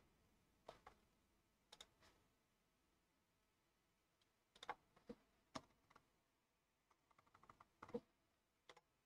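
Faint computer mouse clicks and keyboard keystrokes: a few separate clicks, then a quick run of key taps about seven seconds in.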